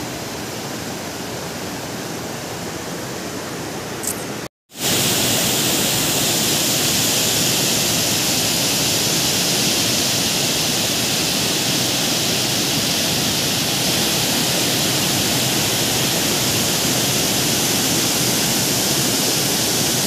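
Steady rushing of water pouring over the rock steps of a waterfall cascade. It cuts out for a moment about four and a half seconds in, then comes back louder and hissier.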